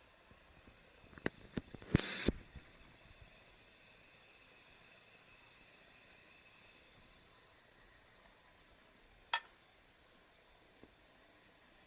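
Hakura Seiki H-70v tabletop bread slicer: two sharp clicks, then a short, loud rasping burst about two seconds in, followed by a faint steady hiss from the machine. A single click comes about nine seconds in.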